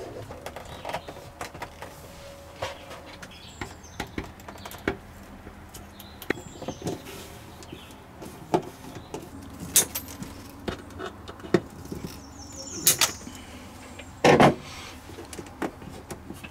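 Scattered clicks, knocks and rubbing as plastic and braided water hoses, clips and fittings are handled and fastened inside a wooden cabinet, with a louder knock a little before the end.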